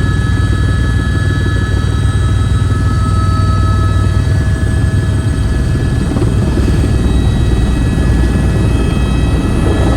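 Helicopter running: a loud, even low drone with steady high whines over it.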